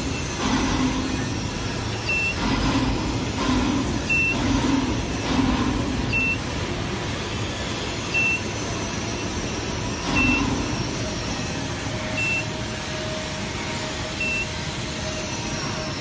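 A short, high electronic beep repeating about every two seconds over steady machinery and site noise.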